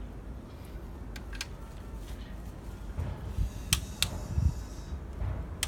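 A few sharp metallic clicks of a hand wrench on the cylinder-head bolts as they are tightened in sequence, coming in close pairs, over a low steady rumble.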